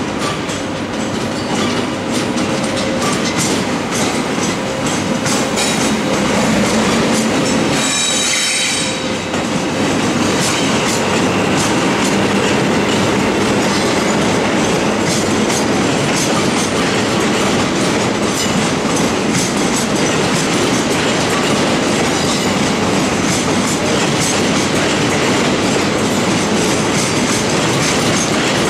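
Electric locomotive-hauled double-deck passenger train rolling over the station throat's points and crossings, its wheels clattering steadily, with a brief high squeal about eight seconds in.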